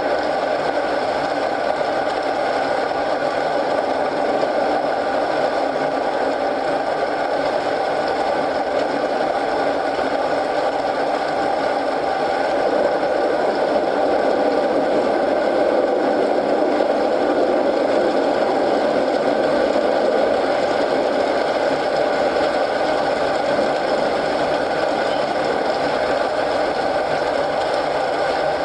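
Steady rain mixed with a wood fire in a fireplace: a continuous, even hiss and patter, getting slightly louder about twelve seconds in.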